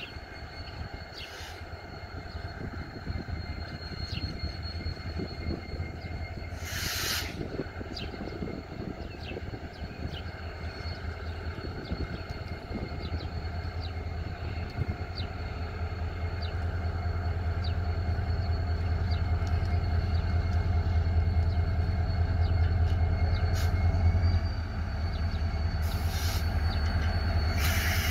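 EMD GT46AC diesel-electric locomotive running as it pulls an iron ore train slowly into a station, its low engine drone growing louder as it comes closer and dropping suddenly about 24 s in. A thin steady high whine runs under it, with brief bursts of hiss about 7 s in and near the end.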